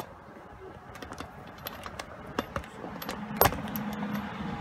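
Clear plastic shrink-wrap on a beef bone being cut and pulled open: a run of crinkles and clicks, with a louder snap about three and a half seconds in.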